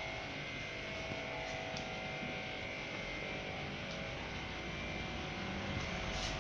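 Steady electrical hum over the low background noise of a small room.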